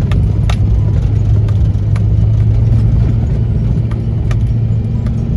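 Vehicle engine running steadily with a low drone, with a few sharp clicks and knocks scattered over it.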